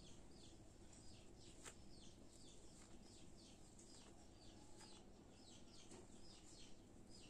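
Faint bird chirping: a rapid, continuous series of short, high chirps, each falling in pitch. There are a few soft clicks among them.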